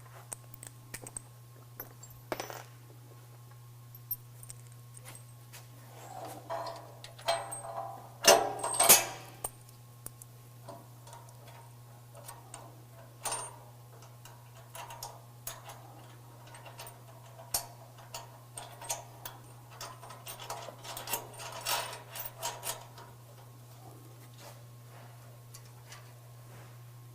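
Steel bumper support bracket, bolts and hand tools clinking and clanking irregularly as the bracket is fitted and bolted to a pickup's frame rail, with a louder clatter about a third of the way in, over a steady low hum.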